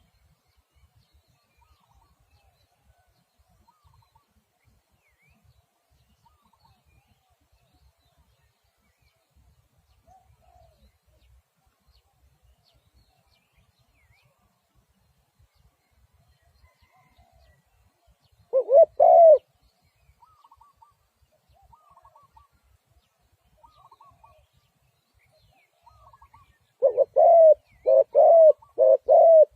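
Spotted dove cooing: one short call about two-thirds of the way through, then a quick run of repeated coos, about two a second, starting near the end. Faint chirps from small birds come in between.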